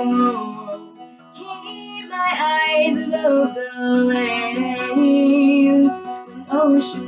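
A woman singing a slow worship song, accompanying herself on an acoustic guitar, with long held sung notes over the guitar chords.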